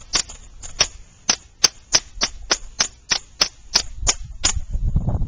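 A mallet rapping a loaded Ruger SR9 pistol about fourteen times in quick succession, roughly three sharp knocks a second, in a test of whether the recalled pistol will inertia-fire when struck. The round does not go off: no shot among the strikes.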